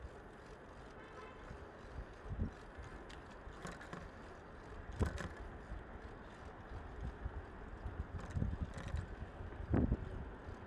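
City street ambience: a steady background of traffic noise, broken by scattered low thumps and a few sharper knocks, the loudest about halfway through and again near the end.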